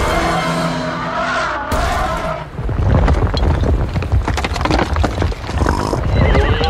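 Background music for about the first two seconds, then a loud low rumbling with dense crackling and clicking, with a wavering tone near the end.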